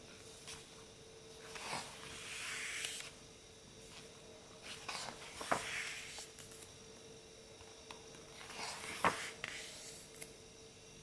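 Pages of a large hardcover art book being turned by hand, three times: each turn is a papery swish, and the second and third end in a sharp slap as the page lands.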